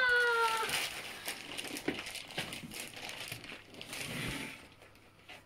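Plastic packaging crinkling and rustling as a boxed computer monitor is unwrapped, with irregular crackles. A drawn-out squeal fades away within the first second.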